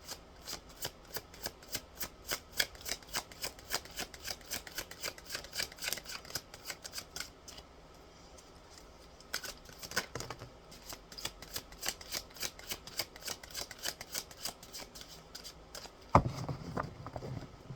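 A deck of oracle cards being shuffled by hand, the cards slapping together in quick strokes about four times a second. The shuffling pauses briefly about halfway through, then a heavier knock near the end as the cards are set down.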